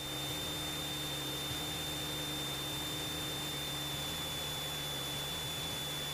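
Steady hiss over the aircraft intercom, with a faint low drone of the Cessna 172SP's engine in cruise-power flight and a thin, steady high-pitched tone.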